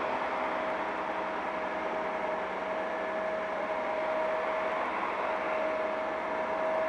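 Liebherr mobile crane's engine running steadily while it hoists a load, with a constant high whine over the engine noise that drops out briefly about five seconds in.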